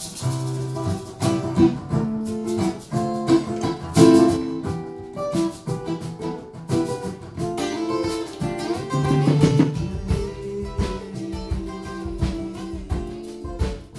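Acoustic guitar and hollow-body electric guitar playing a lively instrumental together with sharp, percussive strums. In the second half the electric guitar drops out, leaving the acoustic guitar.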